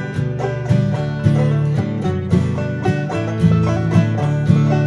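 Instrumental background music with quick, evenly paced plucked-string notes.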